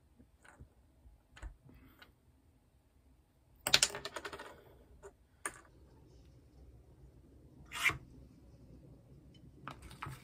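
A spatula clicking and scraping against a plastic bowl while mixing a face-mask paste. Scattered light clicks, with a denser clatter about four seconds in and single sharper clicks after it.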